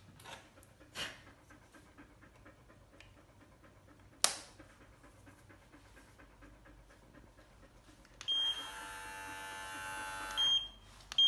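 A few clicks as a ceramic blade is handled and fitted onto a CODOS pet hair clipper, the sharpest one about four seconds in. About eight seconds in the clipper is switched on and runs with a steady buzz, stops briefly near the end and starts again.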